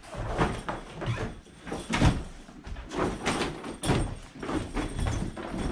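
Rustling scrapes and dull knocks of a soft fabric seat pad and its bag being handled and fitted onto an inflatable boat's bench seat, an irregular run of about two a second, the loudest about two seconds in.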